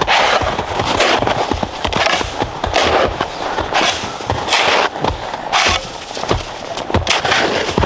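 Wet snow being scooped and piled, a series of crunching scrapes about one or two a second, each with a soft thump.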